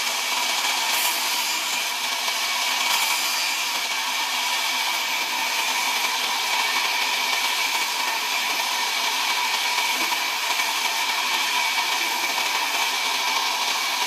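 A large sawmill band saw runs and cuts through timber, making a steady whine over the noise of the cut.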